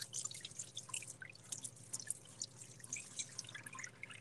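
Hands being washed under a thin stream of hot water from a kitchen faucet: water splashing and dripping off soapy hands into the sink in quick, irregular spatters.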